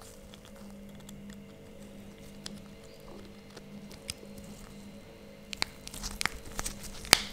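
Small plastic clicks and handling sounds as an Apple AirTag's white inner cover is pressed back into its housing by gloved fingers. The clicks grow louder and more frequent in the second half, with one sharper click near the end, over a faint steady hum.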